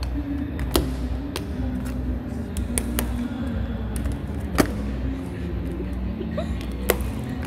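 Small laptop's plastic case and keyboard cracking under the weight of a person standing on it: a handful of sharp, separate cracks, the loudest about halfway through, over steady low background noise.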